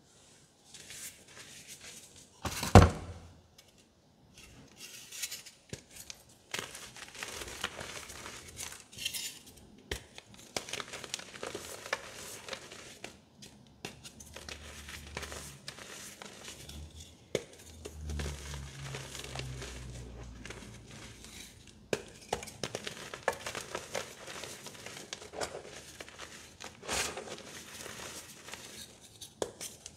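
Soft, dusty reformed blocks of dyed gym chalk being crushed and crumbled by hand, a steady gritty crunching with powder sifting down. About three seconds in there is one sharp crack, the loudest moment.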